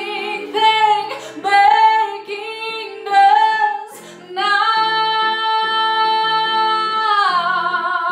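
Solo female voice singing a musical-theatre ballad over instrumental accompaniment. A few short phrases give way, about four seconds in, to a long held note that steps down in pitch near the end.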